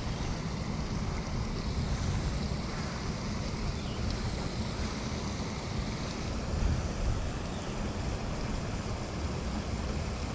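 Wind blowing hard across the microphone: a steady low rumble that flutters with the gusts.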